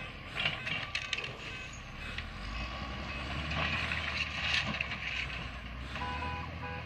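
A heavy vehicle's engine runs steadily, with a few sharp metallic knocks about half a second to a second in. Near the end come two short beeps.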